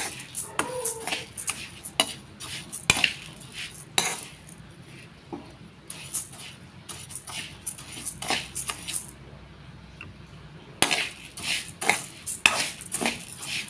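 A metal spatula scrapes and turns dry rice grains around a metal pan as parboiled rice dry-roasts on a low flame, the grains rattling against the pan with each stroke. The strokes are quieter and sparser for a while in the middle.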